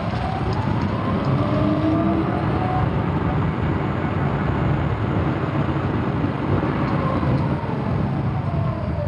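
Steady wind and road noise from an Arcimoto FUV electric three-wheeler driving on a wet road, with tyre hiss. A faint whine from its electric drive rises in pitch over the first couple of seconds and falls again near the end as it speeds up and slows.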